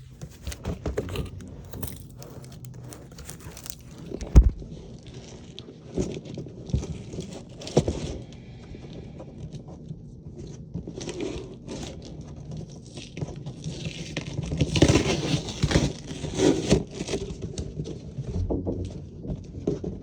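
Plastic packaging crinkling and rustling while hard plastic vacuum parts are handled, with scraping and scattered knocks. The sharpest knock comes about four seconds in.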